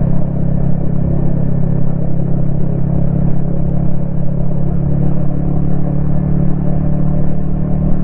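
Yamaha XSR155's single-cylinder engine running at a steady, even cruise, with road and wind noise, picked up by a helmet-mounted camera.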